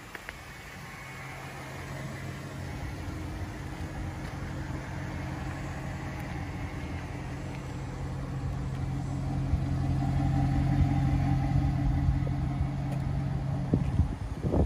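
2005 Cadillac XLR's 4.6-litre Northstar V8 idling steadily, its exhaust growing louder toward the rear of the car. The idle cuts off abruptly near the end.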